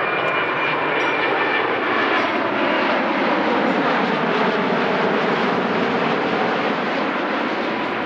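Twin-engine jet airliner passing low overhead, its engines making a loud, steady roar whose pitch bands sweep down and back up as it goes by.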